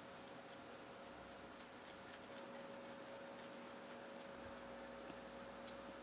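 Pin vice turned by hand, its fine drill bit boring a small hole in white styrene plastic sheet: faint, scattered ticks and scratches, with one sharper click about half a second in.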